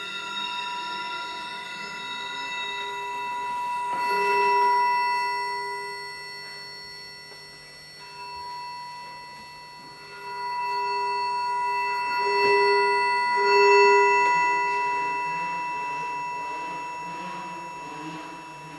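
Live electroacoustic music made of several sustained electronic tones, some low and some high, layered as a drone. It swells twice, about four seconds in and again around thirteen seconds, then fades.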